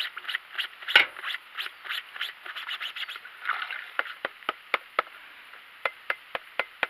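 A dirty oil filter element being scrubbed by hand over a bucket of washing fluid: scraping and rubbing with small wet knocks, giving way about halfway to a run of sharp light clicks, two or three a second.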